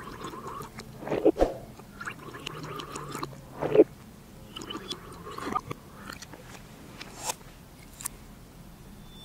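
Close-up drinking sounds: juice sipped through the glass straw of a bird-shaped glass, with wet slurps and gulps, the loudest swallows about a second in and near four seconds, and small mouth clicks later on.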